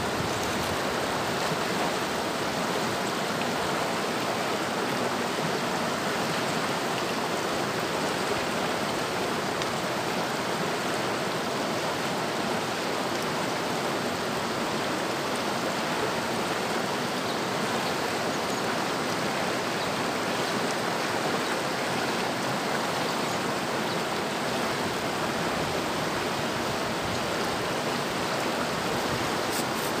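Mountain river running: a steady, even rush of flowing water that does not change.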